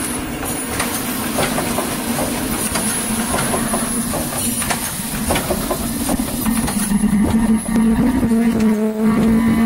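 Automatic drip coffee bag packing machine running, a busy mechanical clicking and clattering over a steady hum.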